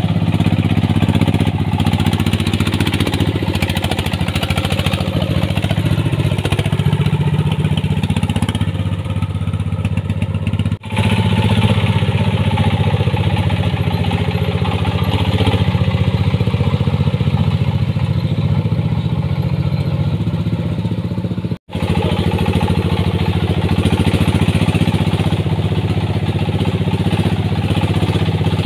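Single-cylinder diesel engine of a homemade ledok dump truck running steadily as the loaded truck drives along, a low engine note with a diesel clatter. The sound cuts out for an instant twice, about 11 and 22 seconds in.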